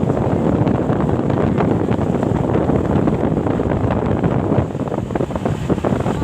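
Wind buffeting the microphone over the steady rumble of road traffic; no horn sounds.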